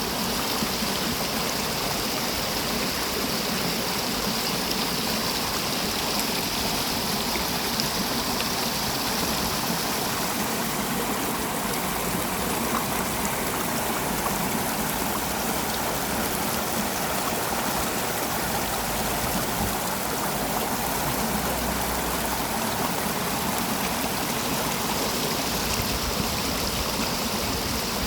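Mountain valley stream flowing, a steady rush of water.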